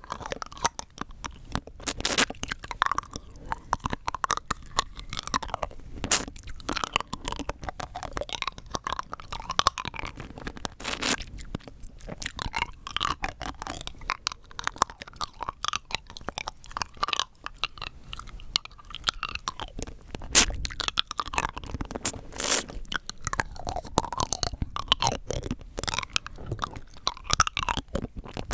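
Rock candy being crunched and chewed close to the microphone: a dense, irregular run of sharp cracks as the hard sugar crystals break between the teeth, with a few louder snaps.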